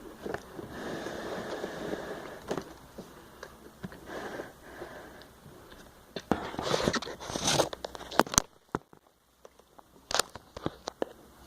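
Faint rustling and scraping handling noises with scattered small clicks and taps, with louder rustling bursts about six to eight seconds in.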